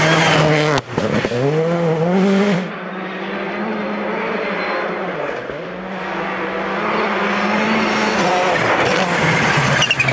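Citroën C3 R5 rally car's turbocharged 1.6-litre four-cylinder engine revving hard, its pitch climbing and dropping at each gear change. The sound cuts abruptly about a second in and again between two and three seconds in; the car is farther off and quieter through the middle and loud again near the end.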